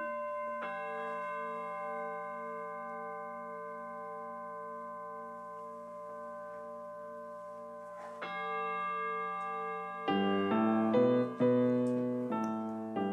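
Brass bowl bell rung for the elevation of the chalice at the consecration: struck at the start and again about eight seconds in, each stroke ringing on long with a slow wavering beat. Electric keyboard music comes in about ten seconds in.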